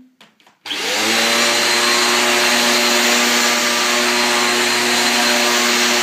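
Zanussi AirSpeed Lite bagless upright vacuum cleaner switching on about half a second in: the motor spins up within a fraction of a second, then runs loud and steady with a whine over the rush of air as it is worked on carpet. A noisy machine.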